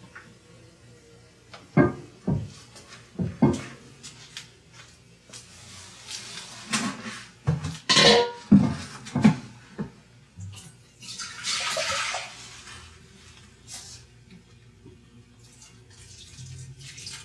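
Wort being handled and poured by hand during mash recirculation: a few knocks of a plastic bucket being moved about two to three seconds in, then wort sloshing and splashing as it is tipped from the bucket into a jug, and a short steady pour about eleven seconds in.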